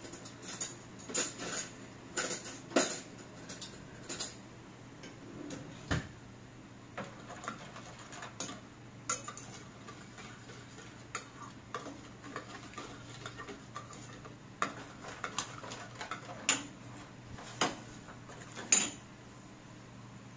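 Cutlery clinking against small ceramic and steel bowls as dry seasonings are mixed and dishes are moved on a steel counter: irregular sharp clinks and clatters, busiest in the first few seconds, with one of the loudest near the end. A low steady hum runs underneath.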